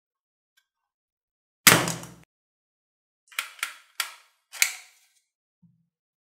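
Plastic toy dart revolver being handled and worked: one loud sharp snap, then about a second later four quicker plastic clicks.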